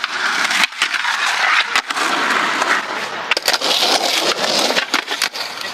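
Skateboard wheels rolling over rough concrete, with several sharp clacks of the board hitting the ground or the concrete ledge.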